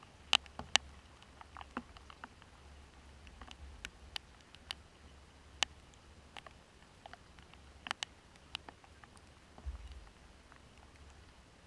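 Scattered raindrops tapping close to the microphone: irregular sharp ticks, a few stronger than the rest, over a faint low rumble.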